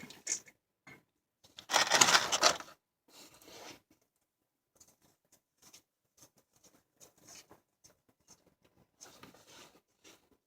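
Old engine oil spilling out as the loosened oil filter is spun off by hand: a loud splashing, rustling burst about two seconds in, then faint scattered drips and ticks.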